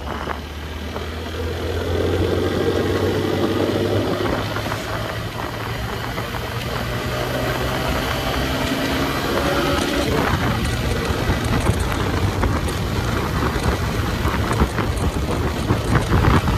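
Motorcycle engine running on the move, its pitch rising twice as it accelerates, over a steady rush of road and wind noise.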